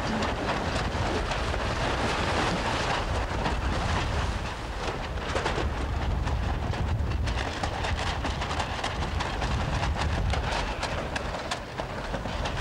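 Steady wind buffeting the camera microphone, a low rumble with a dense crackling hiss over it.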